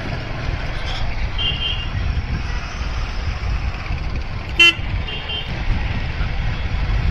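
Steady road-traffic rumble with brief vehicle horn toots: a short high beep about one and a half seconds in, a sharp toot about four and a half seconds in, and another short beep right after it.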